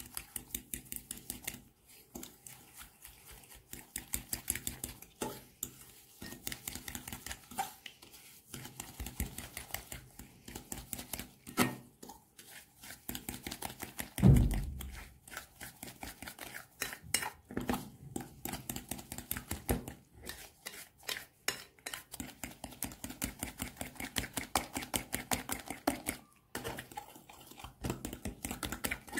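Metal fork beating eggs and sugar in a glass bowl: rapid, steady clicking of the fork against the glass as the sugar is whisked to dissolve it. A single loud thump about halfway through.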